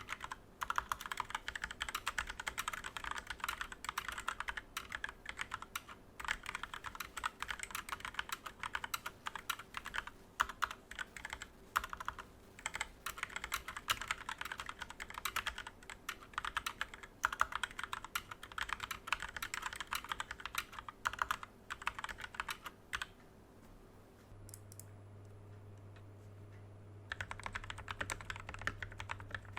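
Fast typing on a Tecware Phantom Elite TKL mechanical keyboard with Kailh Speed Silver switches, first in its stock, unmodded state. It breaks off about 23 seconds in, leaving only a low hum for a few seconds. Typing resumes near the end on the same board after the mod, with its switches lubed with Krytox 205g0.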